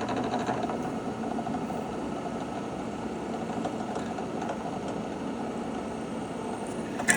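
Drill press running with its bit drilling into a workpiece, a steady mechanical whir and chatter. A sudden sharp, ringing clatter starts at the very end as the bit goes wrong.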